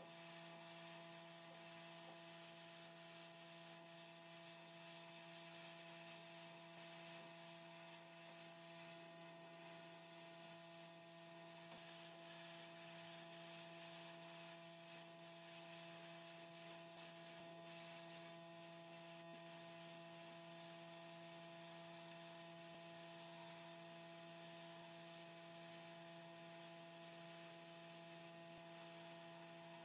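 Sandblast cabinet in use: a steady hiss from the blast gun as it strips paint and rust from a part, with a steady hum underneath.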